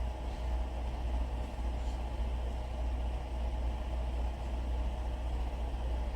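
Steady low mechanical hum with a faint even rumble, unchanging throughout.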